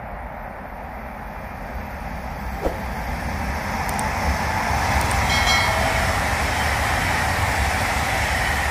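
Jakarta–Bandung high-speed electric train coming out of a tunnel at speed: a steady rush of train noise that builds over the first five seconds, then stays loud as the train passes the portal.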